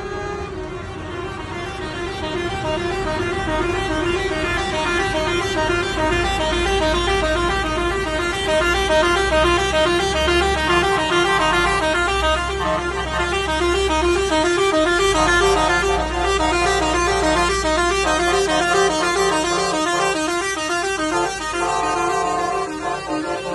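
Truck horns sounding without pause from a passing convoy of lorries: a warbling horn whose pitch flips rapidly back and forth, turning to held horn notes near the end. Heavy truck engines rumble underneath as the lorries pass.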